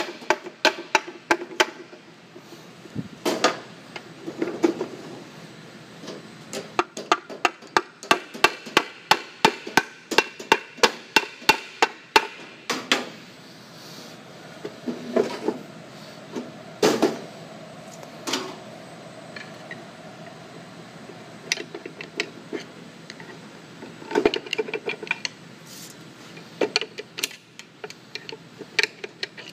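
Hammer tapping on a golf cart transmission's cast case cover to break it loose, in quick runs of about three taps a second, then scattered knocks as the cover is worked off with a screwdriver.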